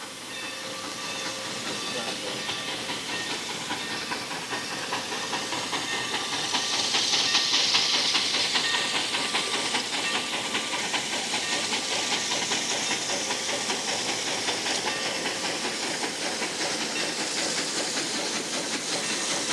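Mikado steam locomotive working along the track: a steady hiss of steam with a fast, even pulse from the engine and wheels. It grows louder over the first several seconds as it comes closer, then holds.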